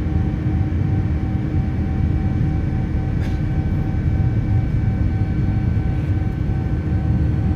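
Steady cabin noise of a Boeing 787 Dreamliner in flight, heard from a window seat: a low engine and airflow roar with a few steady hums above it, one of them faintly pulsing.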